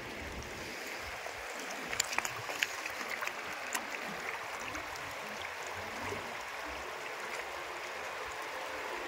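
Steady rush of river water flowing over rocks, with a scatter of sharp stony clicks between about two and four seconds in.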